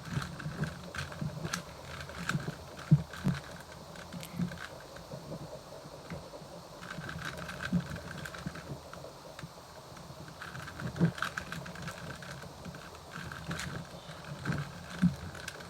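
Layers of a plastic Rubik's Cube being turned quickly by hand: irregular clicks and clacks of the pieces snapping round, a few a second.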